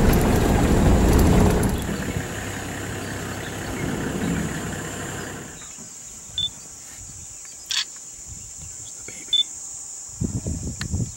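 Safari vehicle driving over a bumpy dirt track: a loud rumble that eases about two seconds in and dies down after about five seconds. After that a steady high whine remains, with a few short high chirps and one sharp click.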